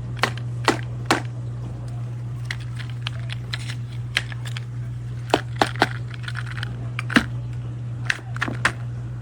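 Irregular sharp clicks and knocks of hard plastic toy-sandbox parts being handled, over a steady low hum.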